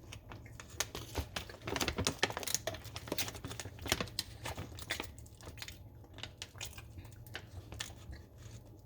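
Plastic snack packaging crinkling and rustling in irregular clicks as a bag of caramel and chocolate popcorn is handled and torn open.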